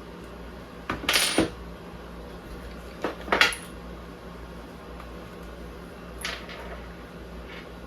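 Small hard parts and tools clinking and clattering as they are handled, in two louder clusters about a second and three seconds in, then a couple of lighter clinks near the end.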